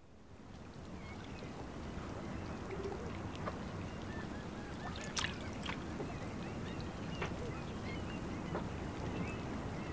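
Outdoor water ambience fading in over the first second or two: a steady wash of water, with scattered short bird calls and a few sharp clicks.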